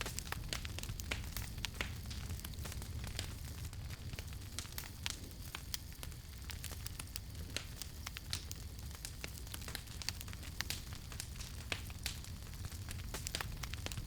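Campfire burning with irregular sharp crackles and pops over a steady low rumble of flame.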